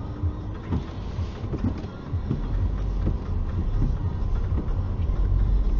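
Low rumble of a car moving off slowly over snowy ground, heard from inside the cabin, with irregular low knocks. The rumble grows louder about two seconds in.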